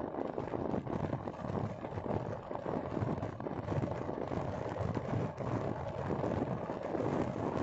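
Wind buffeting the microphone over road noise from a vehicle driving along a highway: an uneven, low rushing rumble with no distinct tones.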